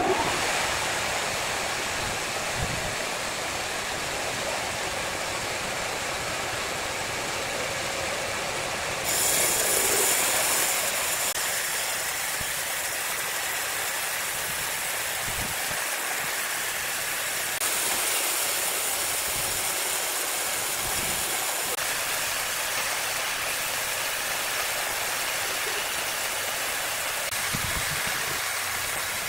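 Large horizontal band sawmill running its blade lengthwise through a big hardwood log: a steady, loud rushing hiss of the cut over the running machine, turning louder and brighter about nine seconds in.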